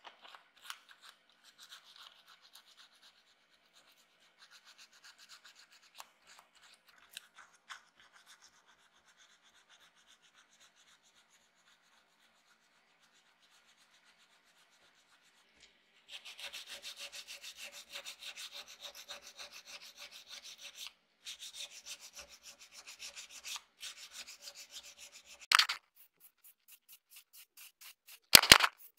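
Fine sandpaper rubbing over a small model car part: light, faint strokes at first, then, after a short pause, a louder run of quick back-and-forth strokes. A few short, loud bursts come near the end.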